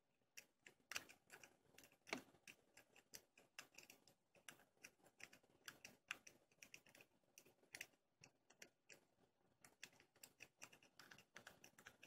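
Faint, irregular rapid clicking and scratching of a W rake pick being raked in and out across the pin tumblers of a laminated-steel Master Lock No. 3 padlock held under light tension.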